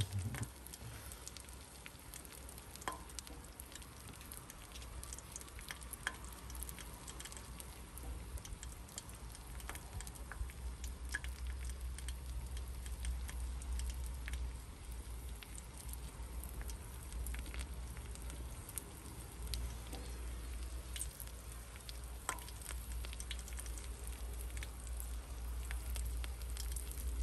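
Eggs and butter frying on a flat-top griddle: a steady sizzle scattered with small pops and crackles, over a low rumble.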